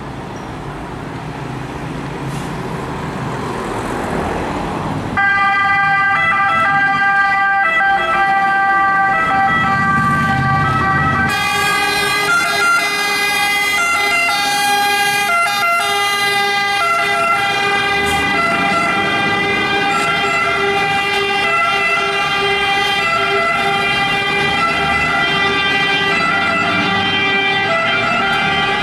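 Fire trucks' diesel engines rumbling and growing louder as they move off. About five seconds in, an Italian fire-brigade two-tone siren switches on abruptly and alternates between its two pitches. Around eleven seconds in a second siren joins, the two sounding together.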